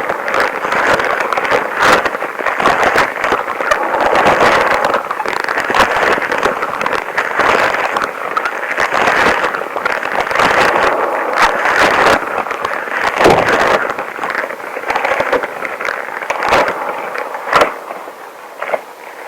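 Long rubber gloves rubbed and handled right at the microphone: a dense, continuous crackling full of small snaps, thinning out near the end.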